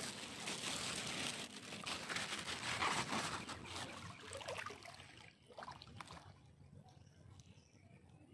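Water pouring and splashing for about five seconds, then dying down to small trickles and drips.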